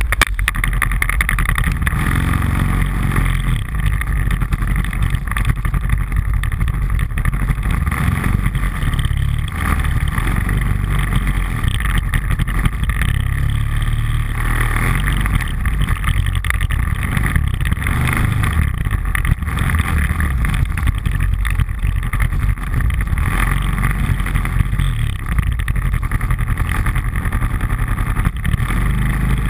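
ATV engine running steadily close to a handlebar-mounted camera, with the rumble rising and easing a little now and then.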